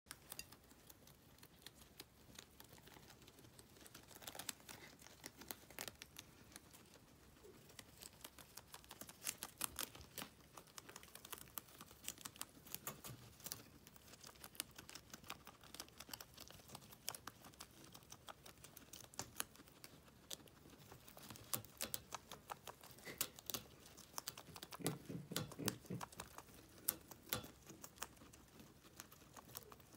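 Two guinea pigs chewing and tearing at a leafy green, an irregular stream of small crisp crunching clicks. A brief lower-pitched sound comes near the end.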